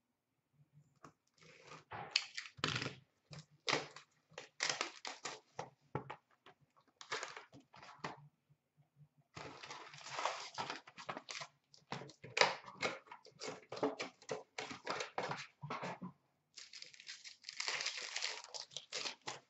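Cellophane, foil pack wrappers and cardboard of an Upper Deck Artifacts hockey card box being torn open by hand: spells of crinkling and ripping with short pauses between them.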